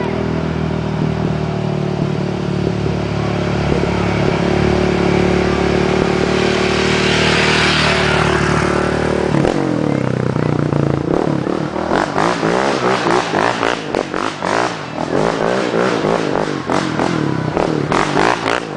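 Yamaha Raptor 700R quad's single-cylinder engine running at a steady pitch, then revving up and down hard from about two-thirds of the way in as the quad is thrown sideways on gravel, with loose stones clattering and spraying.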